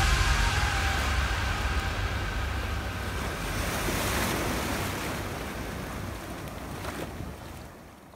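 Ocean surf washing in a steady rush of breaking waves, fading away toward the end.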